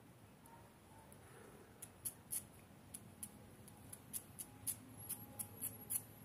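A small dog's claws clicking and scraping on stone tiles as it paws and hops around something on the ground: irregular quick, sharp clicks, few at first and coming thicker from about two seconds in.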